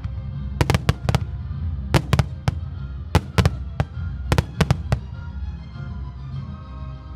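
Fireworks shells bursting in quick clusters of sharp bangs, two to four at a time, over show music with a heavy bass. The bangs thin out after about five seconds, leaving the music.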